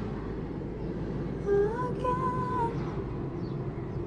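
Background music with a female singing voice, over a steady low rumble.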